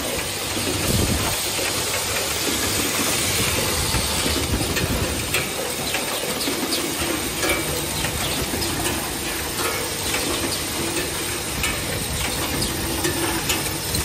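Automatic hinge assembly machine running: a steady hiss of compressed air with many quick clicks and clatter from its pneumatic cylinders and metal parts.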